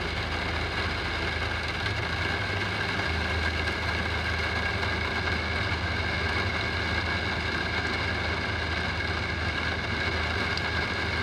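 Steady street noise on a rain-wet road: motor vehicles running and driving past, with a low engine hum under a continuous hiss.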